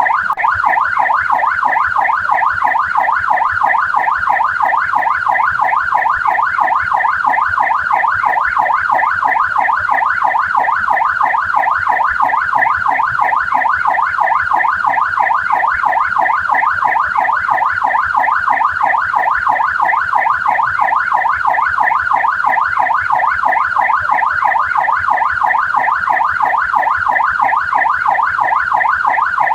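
Australian police car siren in yelp mode, its pitch sweeping rapidly up and down several times a second in an unbroken, steady cycle.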